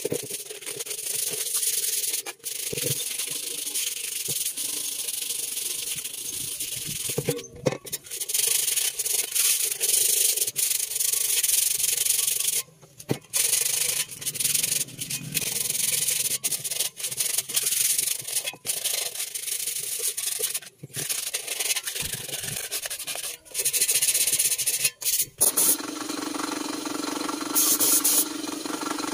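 Abrasive rubbing on a sheet-metal body in stretches, broken by several abrupt cuts. Near the end, a spray gun hissing over a steady hum.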